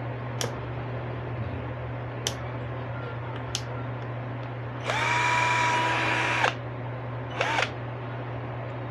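Ingco 12V cordless drill: a few sharp clicks as its torque-setting collar is turned, then the motor spins up with a rising whine, runs steadily for about a second and a half and winds down. A short second burst of the motor follows.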